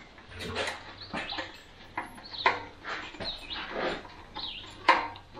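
Sharp irregular clicks and knocks of a screwdriver and metal throttle linkage as a throttle-cable clamp bolt is tightened on a small engine, the loudest near the end, with short bird chirps in between.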